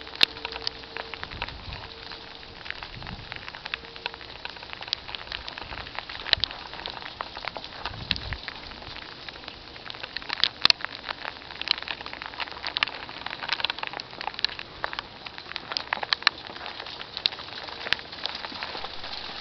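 Freezing rain falling and striking hard surfaces: a dense, irregular patter of many small sharp ticks over a steady hiss.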